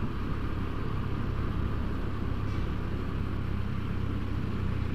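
Motorcycle cruising at a steady speed: an even, low engine drone mixed with wind and road noise.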